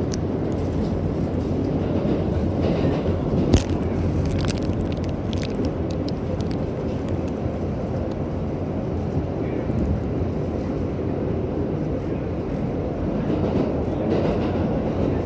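Inside an R188 subway car on the 7 line, running at speed: a steady low rumble of the wheels on the rails, with a few sharp clicks, the loudest about three and a half seconds in.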